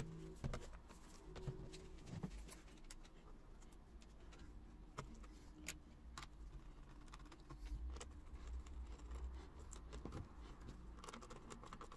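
Quiet handling noise from a laptop being turned over and set down on a cutting mat, with scattered light clicks and knocks of its plastic case.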